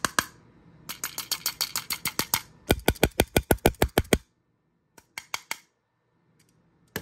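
Plastic audio cassette being handled, giving two quick runs of small ratchet-like clicks, about seven a second, then a few more clicks a little later.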